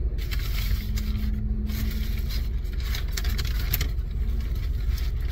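Paper sandwich wrapper crinkling and rustling as a sub is peeled open, over the steady low rumble of an idling car.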